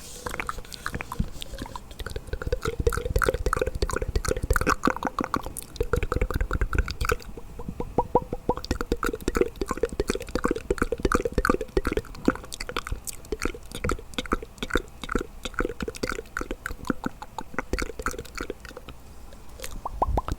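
ASMR mouth sounds: a rapid, continuous run of wet clicks and smacks made with the tongue and lips.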